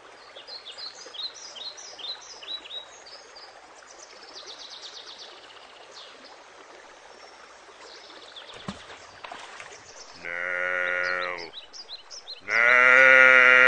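Soft outdoor ambience with faint chirping and brief trills, then two loud, long, drawn-out calls in an old man's voice near the end: the elder calling out for his attendant.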